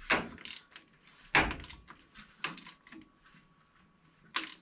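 Ratchet on the crankshaft bolt of a 5.9 Magnum V8 clicking and clunking as the engine is turned over by hand, in a few sharp strokes at uneven intervals with the loudest about a second and a half in. The crank is being brought around to top dead center, the 50-degree mark, to set up the distributor.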